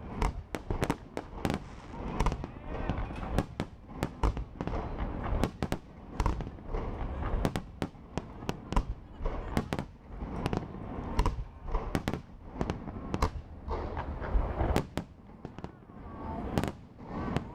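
Aerial firework shells bursting in rapid succession: a dense run of sharp bangs, several a second, over a continuous low rumble.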